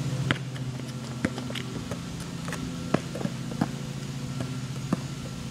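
A basketball bouncing on an asphalt road: sharp, irregularly spaced thuds, about eight of them, over a steady low mechanical hum.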